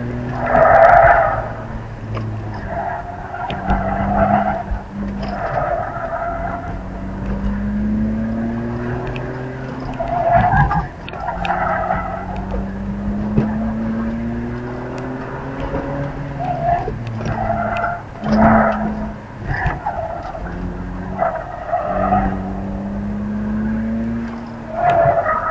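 BMW E46 325xi Touring's 2.5-litre inline-six revving up and easing off again and again, heard from inside the cabin, while the tyres squeal in short bursts under hard cornering, about eight times.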